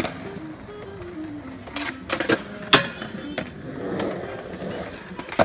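Skateboard wheels rolling on concrete, broken by several sharp clacks of boards hitting the ground, the loudest just before the middle.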